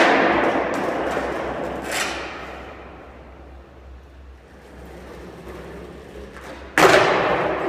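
Skateboard slamming down on a concrete garage floor, each hit ringing on in a long echo: a loud one at the start, a lighter knock about two seconds in, and another loud one near the end.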